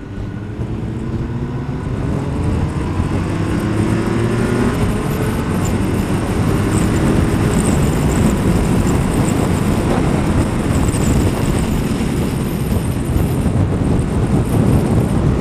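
Kawasaki ZZR1200's inline-four engine accelerating, its note rising steadily over the first several seconds as the bike picks up speed. After that, a steady rush of wind and road noise at speed drowns out the engine.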